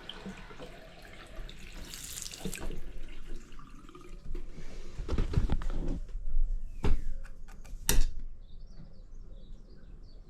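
Water running from a freshly rewashered basin tap into the basin as the repair is tested, with several sharp knocks in the second half.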